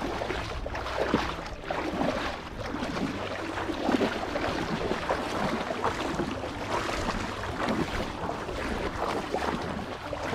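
Shallow water splashing and sloshing irregularly, as from wading and groping by hand in a flooded field, with a low rumble of wind on the microphone.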